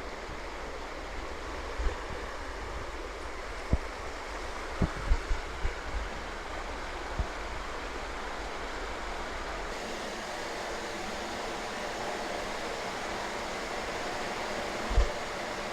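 Steady rush of running water, with a few soft, low thumps scattered through it.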